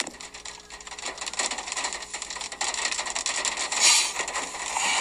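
Soft clicking and rustling close to the microphone of a phone recording inside a parked car, with a louder rustle about four seconds in.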